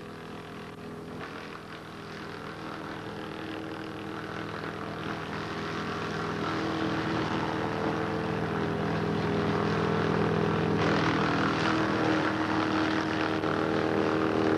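Wood chipper's 30 hp Kubota four-cylinder water-cooled diesel engine running steadily, growing gradually louder. A harsher, noisier sound joins about eleven seconds in.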